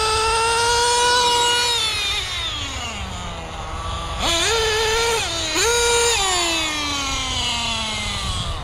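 Kyosho Inferno NEO 3.0 RC buggy's small two-stroke nitro engine revving high at full throttle. It holds for a second or so, then slides back down toward idle. It revs up again sharply about four seconds in and once more about five and a half seconds in, with a short dip between, then falls slowly back near the end.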